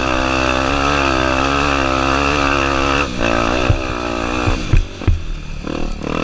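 Honda Tornado 250's single-cylinder four-stroke engine running at steady, slightly wavering revs; about three seconds in it drops off, and several sharp knocks follow while it runs on more quietly.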